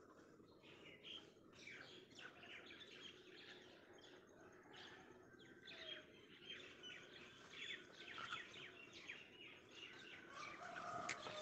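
Small birds chirping faintly, a steady scatter of many short, quick chirps.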